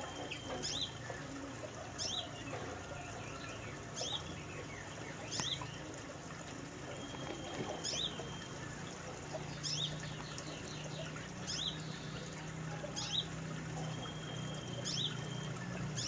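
Brown-throated sunbird (kolibri manggar) calling in full voice: sharp, high, downward-sweeping chirps repeated about once every second or two, with a few short level whistled notes between them.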